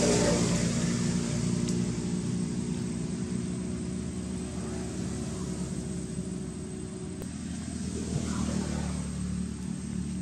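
Motor vehicle engine running steadily, a low hum that eases off a little in the middle and swells again near the end.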